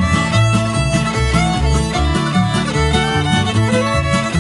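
Old-time string band playing an instrumental passage: a fiddle leads over plucked guitar and a walking bass line, with no singing.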